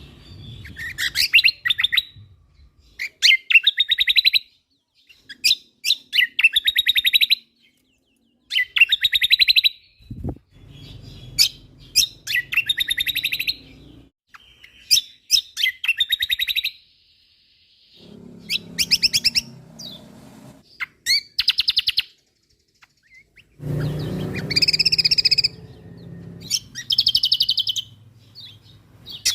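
A kecial kombok (cucak kombo) songbird singing in repeated fast, rattling high bursts about a second long, every two to three seconds. A low rumble sits under the song for a moment near the end.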